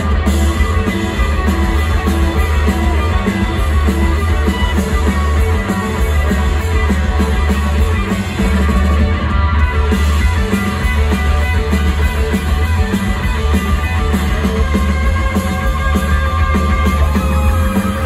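Psychedelic rock band playing live and loud: electric guitars and a drum kit over a heavy low end, unbroken throughout.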